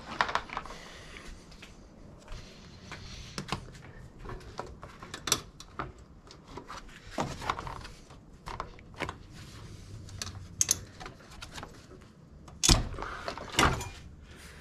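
Jeep Wrangler JK plastic front grille being worked loose by hand: scattered plastic clicks, rattles and knocks as its clips and tabs let go, with two louder knocks about two seconds before the end.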